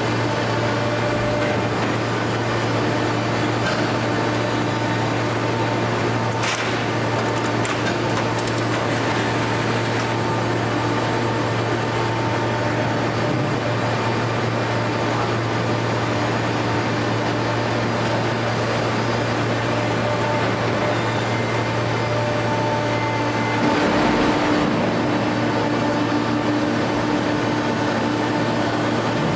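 Hydraulic power unit of a two-ram pre-compression lid baler running with a steady low hum. Faint higher whines come and go over the hum, and a short louder surge comes about 24 seconds in.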